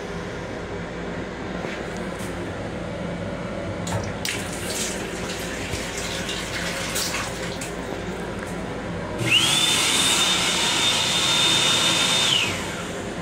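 M7 railcar restroom faucet running water into the sink basin, over the steady rumble of the moving train. About nine seconds in, the panel's hand dryer blows for about three seconds, a loud hiss with a high whine that rises as it starts and drops away as it stops.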